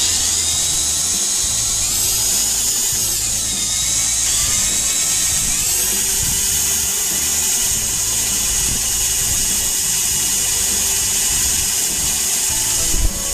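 Foster FSD-010 corded 350 W drill/driver running at high speed with an 18 mm wood bit, a steady high whine; about two to four seconds in the pitch sags as the bit bites under load, then climbs back. A few knocks near the end.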